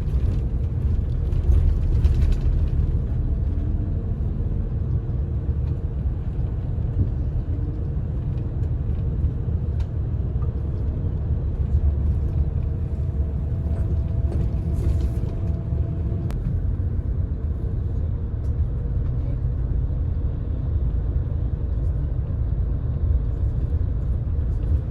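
Steady low engine and road rumble from inside a moving bus, with a faint constant hum above it.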